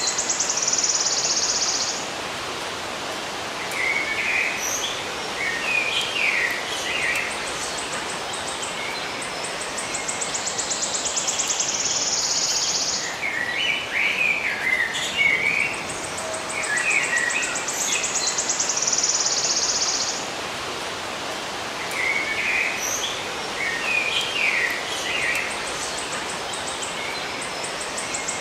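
Birds chirping in short clusters every few seconds, with a fast, high, pulsing insect trill like a cricket's coming and going in long stretches, over a steady hiss of outdoor ambience.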